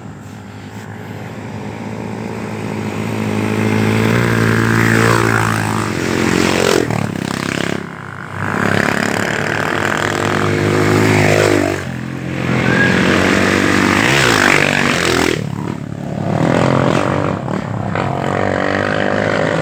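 Several rally dirt-bike motorcycles ride past one after another at speed, engines revving high. Each pass swells up and falls away, with the engine pitch dropping as the bike goes by, about four passes in all.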